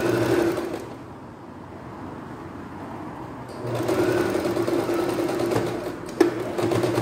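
Singer domestic sewing machine stitching a hem in knit fabric, running in spurts: it runs at the start, eases off after the first second and picks up again about four seconds in. A sharp click sounds a little after six seconds.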